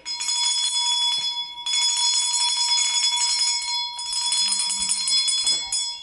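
Small brass schoolmarm-style handbell shaken rapidly and continuously, its clapper striking many times a second so the ringing tones run together; the ringing dies away near the end.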